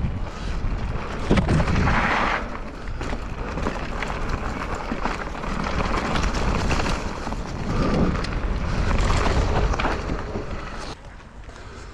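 Mountain bike riding down a rough trail: wind buffeting the microphone over tyre rumble and knocks from bumps and roots. The noise drops sharply near the end.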